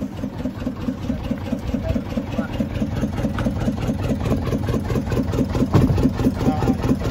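Fishing boat's engine idling with a steady, rapid chugging beat.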